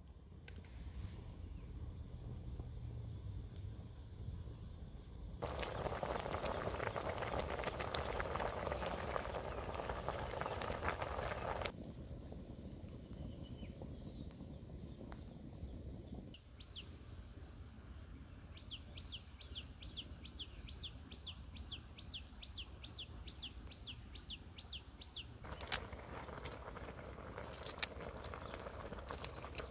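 A pot of water boiling hard over a wood fire, heard as an even bubbling hiss in two stretches. In between, a bird gives a fast, even run of short high chirps, about three or four a second for several seconds.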